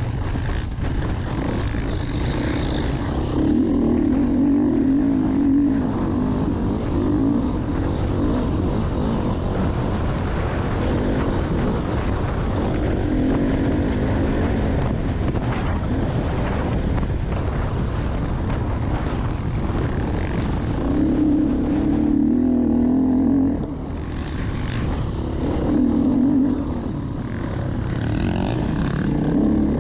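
Dirt bike engine running hard on an off-road course, rising and falling with the throttle. It climbs to a higher, louder note several times and eases off briefly about two-thirds of the way through.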